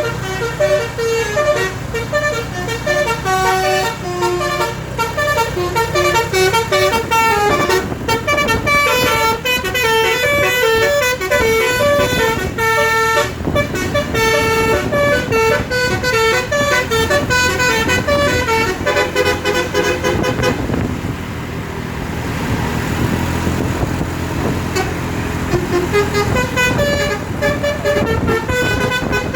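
Bus 'telolet basuri' multi-tone air horn (DAV horns worked by a V4 tune module) playing a quick melody of short stepped notes. The tune breaks off for a few seconds about two-thirds of the way through, leaving a rushing noise, then starts again near the end.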